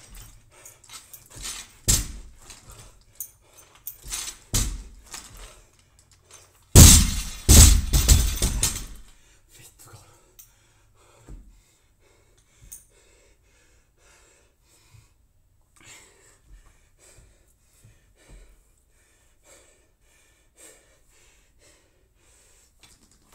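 A barbell loaded with bumper plates dropped onto a rubber gym floor about seven seconds in, landing with a loud crash and rattling for about two seconds. A few lighter knocks of the bar and plates come before it.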